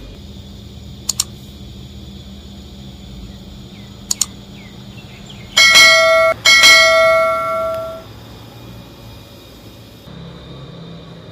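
Subscribe-button overlay sound effects: two quick double mouse clicks, about a second and four seconds in, then a bright notification bell chime struck twice that rings out for about two seconds and is the loudest sound.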